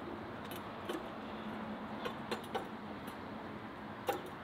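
A few light metallic clicks and knocks as a thin-legged folding metal stand is set down and handled, the sharpest near the end, over a steady outdoor background hiss.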